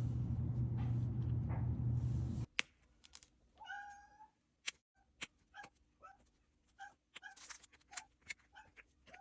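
A steady low hum with noise cuts off abruptly after about two and a half seconds. Then a Siberian cat gives one meow, followed by a string of short chirping meows with sharp clicks between them.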